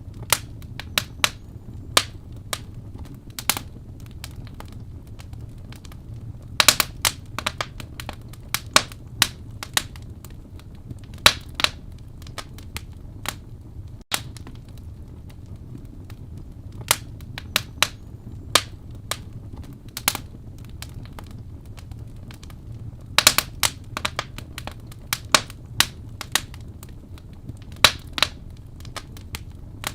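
Wood fire burning in a fireplace: irregular sharp crackles and pops over a low steady rumble, with a few brief flurries of quick pops.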